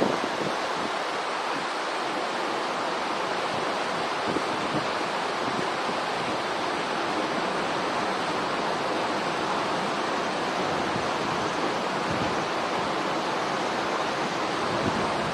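A steady, even rushing noise with no distinct calls or knocks standing out.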